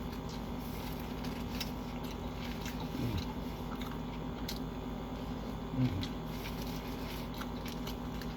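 Chewing a Subway sandwich, with soft wet mouth clicks and crunches. There are two short, low, falling hums from the eater, about three and six seconds in.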